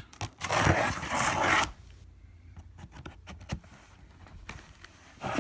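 Cardboard shipping package being handled and worked open: a loud scraping, tearing rustle for about a second and a half near the start, then quieter scattered taps and rubs of the cardboard.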